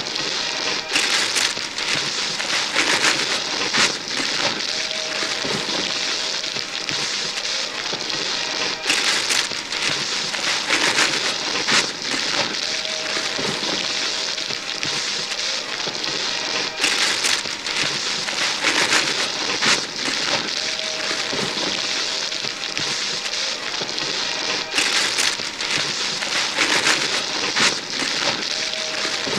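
Wrapping paper being torn and crumpled off gift boxes by several pairs of hands: a continuous crackling rip with louder tears every second or so. The same stretch of tearing repeats about every eight seconds.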